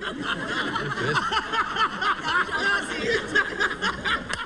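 Studio audience laughing, many voices at once, breaking out suddenly and carrying on, with one man close by laughing heartily.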